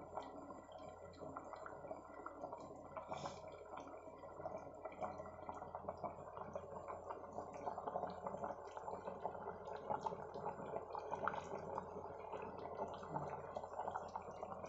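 Chicken biryani, basmati rice and chicken in spiced water, boiling well in an open pressure cooker: a steady stream of small bubbling pops and blips.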